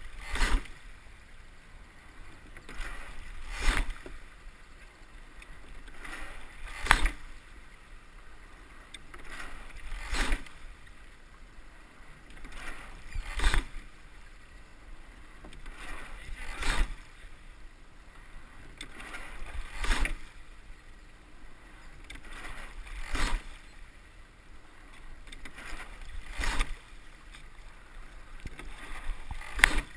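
Double scull being rowed at a steady rate of about eighteen strokes a minute: a sharp clack of the sculls in their oarlocks once a stroke, with the rush of water along the hull in between.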